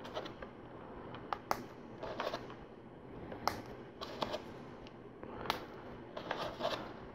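Small black plastic LEGO tread links clicking as they are snapped onto a tread chain one at a time, a sharp click about every two seconds, with soft rustling of pieces being picked up between clicks.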